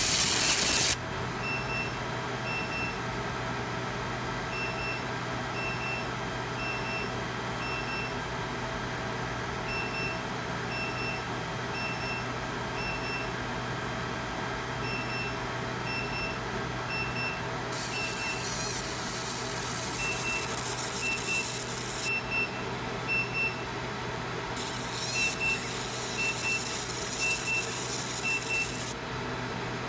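Fiber laser engraving stainless steel: a high, hissing sizzle of the beam ablating the metal for about the first second, again for about four seconds past the middle, and again for about four seconds near the end. A steady machine hum runs underneath. In the gaps between, short high beeps repeat in small groups.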